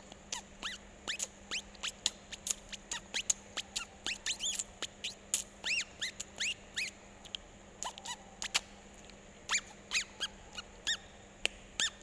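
Small birds chirping: many short, high calls that arch up and down in pitch, coming quickly and irregularly, over a faint steady hum.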